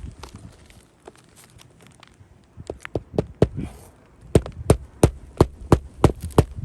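Hammer blows on roofing nails through asphalt shingles: a few scattered knocks, then a quick even run of strikes about three a second starting about four seconds in.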